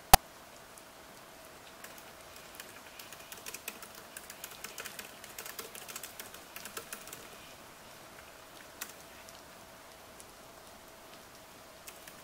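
Typing on a MacBook laptop keyboard: a run of quick key clicks from about two to seven seconds in, a lone keystroke later and a few more near the end, over a faint steady rain hiss and a low hum. A single much louder sharp click comes right at the start.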